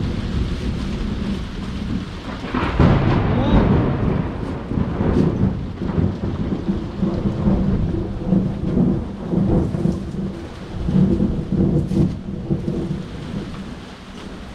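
Thunder rumbling over rain, swelling loudest about three seconds in and rolling on unevenly before easing off near the end.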